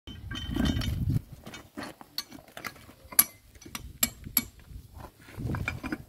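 Sharp metallic clinks and knocks of steel Sherman tank track parts and tools being handled, a few clear ones in the middle, between two louder low rumbling bursts near the start and near the end.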